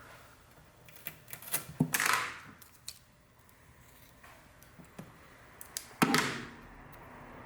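Hands working with strips of double-sided tape on a laptop screen panel: scattered small clicks and taps. There are two short, louder rustling sounds, about two seconds and six seconds in.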